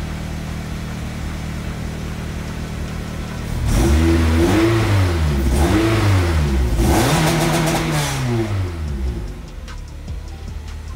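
Honda K-series four-cylinder engine in a K-swapped Civic idling, then revved in a few quick blips from about four to nine seconds in, reaching under 3,000 rpm each time and falling back, before it settles to idle around 1,100 rpm. The revs are louder than the idle.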